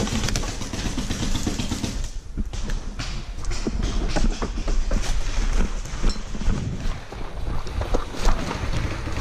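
Low rumble of wind and handling noise on a worn action camera while the wearer runs, with footsteps on dry leaf litter and irregular clicks and knocks throughout.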